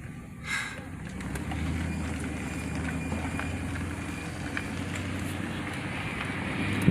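Car engine and road noise of a vehicle driving, a steady low hum that builds about a second in.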